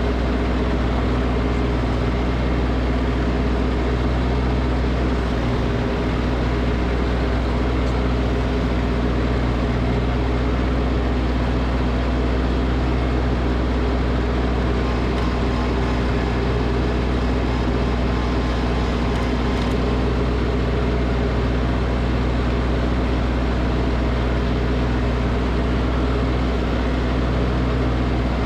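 Small gasoline engine running at a steady speed, with an even, unchanging tone.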